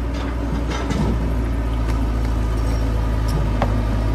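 CAT 312C tracked excavator's diesel engine running steadily under load while it crawls on a steep dirt slope, with a few short clanks and a brief squeak from the machine.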